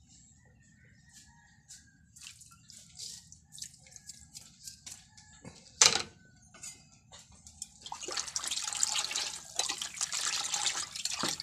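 A hand in a plastic bucket of coconut milk, with scattered drips and small splashes and one sharp knock about six seconds in. From about eight seconds the hand swishes through the milk to mix in the salt, giving steady sloshing and splashing.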